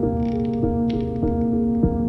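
Background music: steady held tones with new notes coming in roughly twice a second.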